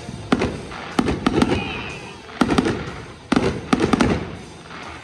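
Aerial fireworks bursting, about ten sharp bangs coming singly and in quick clusters of two or three, each trailing off in a short echoing rumble.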